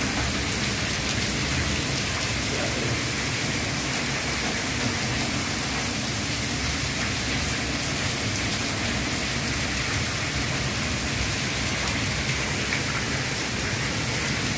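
Heavy downpour of rain splashing onto a concrete courtyard floor, a steady dense hiss without let-up.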